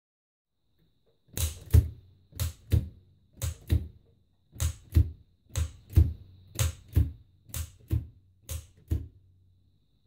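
Oliver typewriter being typed on, its down-striking typebars swinging from the side towers and clacking against the platen. Sharp clacks come in pairs, about one pair a second, eight pairs starting about a second in.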